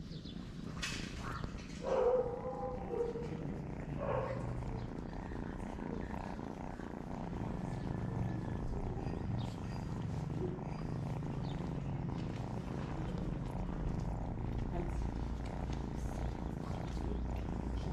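Cat purring steadily and close while being stroked, with a couple of short meows about two and four seconds in.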